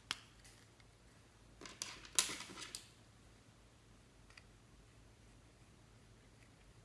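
Plastic eyeshadow palette case being handled and its clear lid snapped open: a sharp click at the start, then a short burst of clicking and rattling about two seconds in, with a few faint ticks after.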